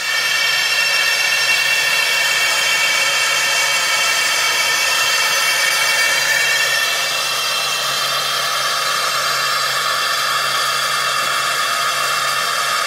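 Laser engraving machine and its fume extractor running while the laser marks a brass plate: a steady hiss with several high whining tones over it.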